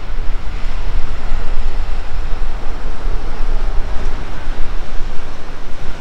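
Wind buffeting the microphone with a loud, steady low rumble, with sea waves washing against the embankment underneath.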